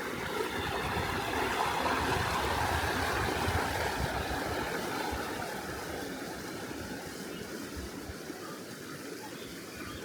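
River water flowing and rushing, a steady noise that swells over the first couple of seconds and eases off toward the end.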